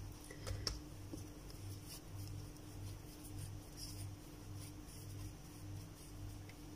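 Faint soft rubbing and a few light taps of hands shaping and patting balls of whole-wheat tortilla dough on a floured countertop, over a low hum that throbs evenly.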